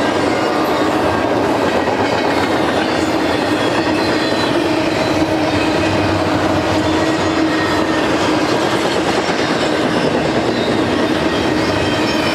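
Double-stack intermodal well cars loaded with containers rolling past at steady speed. Steel wheels on rail make a continuous rumble and clatter, with a steady hum running through it.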